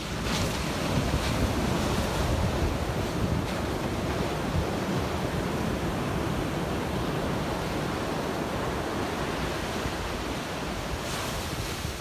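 Ocean surf on a sandy beach: small waves breaking and washing up the sand in a steady rush, swelling just after the start and again near the end.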